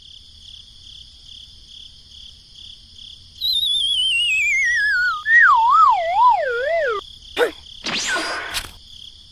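Cartoon sound effect: a wavering whistle tone slides down from high to low over about three and a half seconds, typical of a character being knocked dizzy. Under it runs a steady high insect-like chirring. Near the end come a short click and a brief whoosh.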